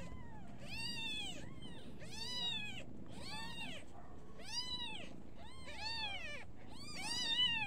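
Newborn kittens mewing, high-pitched cries repeated about once a second, each rising then falling in pitch.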